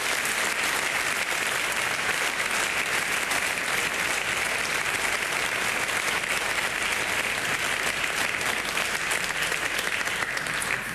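A large congregation applauding in a church, a dense steady clapping that holds at an even level and dies away at the very end.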